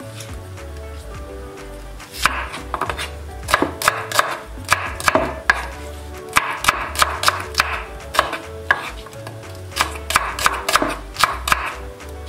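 Kitchen knife chopping onion on a wooden cutting board: quick, uneven runs of sharp knocks from about two seconds in.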